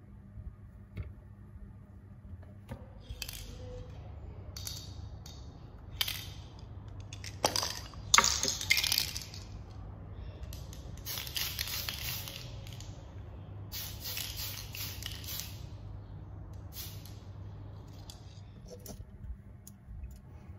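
Aerosol spray can of Tamiya TS-38 Gun Metal lacquer hissing in several short bursts as a plastic model part is sprayed. The loudest moment is a clatter of metallic clinks about eight seconds in.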